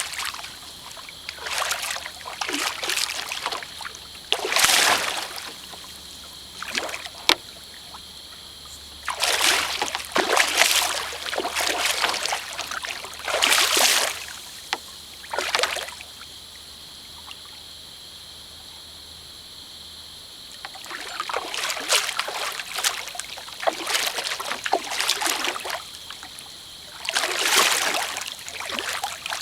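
Water splashing and sloshing in irregular bursts, each a second or two long, with quiet stretches between and a longer lull near the middle: a large flathead catfish thrashing at the surface beside a kayak while being fought on a line.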